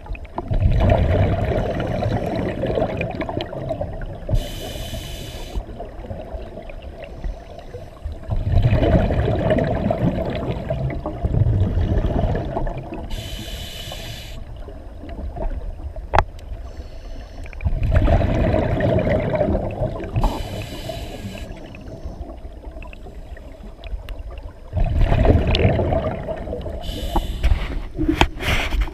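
Scuba diver breathing through a regulator underwater, close to the camera: long bubbling rushes of exhaled air alternate with short hissing inhales, about four breaths roughly eight seconds apart.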